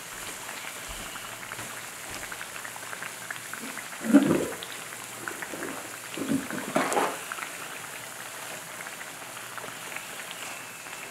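Fish pies deep-frying in hot oil, a steady bubbling sizzle, louder about four and seven seconds in as a metal spoon bastes oil over them. Near the end a thin, high whistle begins: the pie "singing" in the pot as steam escapes from its center, a sign the dough is cooking through.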